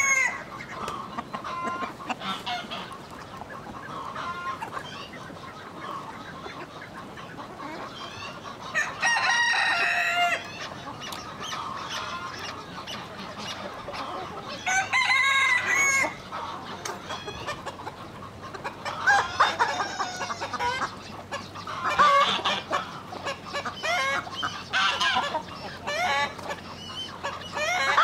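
Chickens clucking, with a rooster crowing twice, each crow over a second long, about a third of the way in and again about halfway through. The clucking grows busier toward the end.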